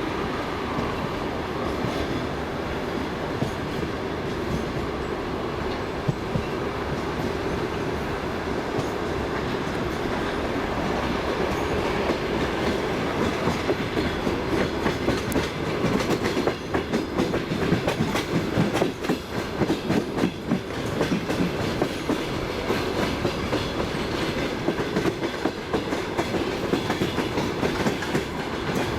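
Passenger train's wheels clattering over the rails, heard from inside the carriage, under a steady running rumble. About halfway through the clatter grows denser and a little louder.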